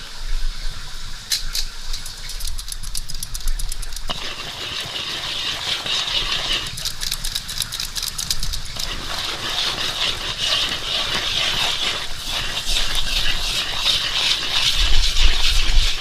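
Cooking in a pan: quick rattling clicks, then a steady sizzle of frying from about four seconds in, with low thumps of handling.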